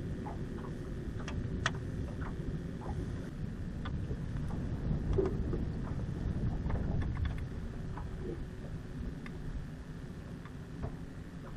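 Steady low rumble of wind and water on a small boat out on open water, with scattered light clicks and taps from handling fish and fishing tackle.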